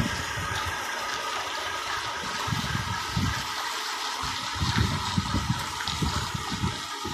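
Heavy truck towing a wind-turbine blade, its engine running as it moves slowly past, under a steady rushing hiss.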